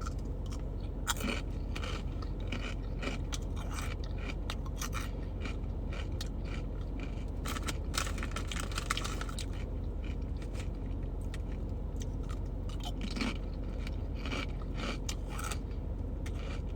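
Pickle-flavoured potato chips being bitten and chewed close to the microphone: irregular crisp crunches throughout, over a steady low hum.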